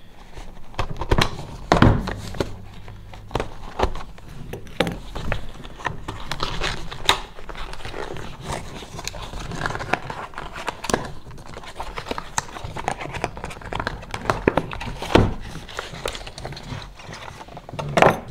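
A cardboard trading-card deck box being cut open with small scissors and handled: irregular clicks, taps and scrapes of scissors and cardboard, with a few louder knocks about two seconds in and near the end.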